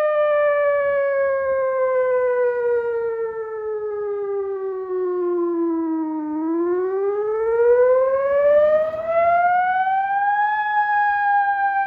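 ATI HPSS-32 electronic outdoor warning siren sounding its wail tone: one steady, unbroken pitch slides slowly down for about six seconds, turns and climbs for about four seconds, then starts to fall again.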